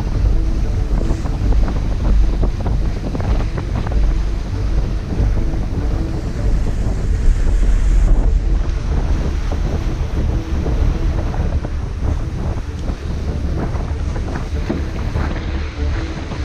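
Wind buffeting the microphone in a steady low rumble on a moving sailboat, with water rushing past the hull.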